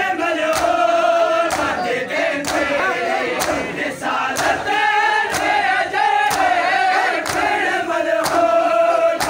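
A crowd of men chanting a noha together in a wavering, sustained melody, with matam, bare hands striking chests in unison, marking the beat about once a second.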